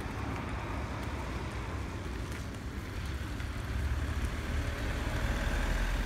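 Street traffic noise, getting a little louder near the end as a vehicle approaches, with wind rumbling on the microphone.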